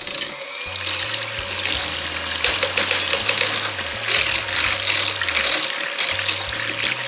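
Electric hand mixer starting up and then running steadily, its beaters whisking a thin liquid of paint, water and guar gum in a glass bowl: a steady motor whine under a hissing, splashing whir.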